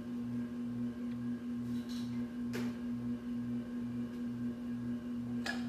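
Steady electrical hum from a running kitchen appliance, with a lower layer that pulses about twice a second. Two faint light scrapes, about two and a half seconds in and near the end, come from a spatula spreading melted chocolate over the cake.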